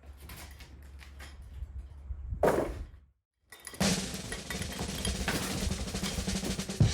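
Background music with a drum beat starts about four seconds in, just after a brief cut to silence. Before it there are only faint scattered knocks over a low hum.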